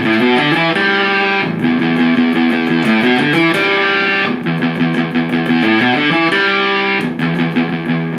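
Electric guitar played through a Marshall Valvestate amp, sustained chords and notes changing every second or so. The signal comes through the homemade pedal snake with hardly any noise: the cable works.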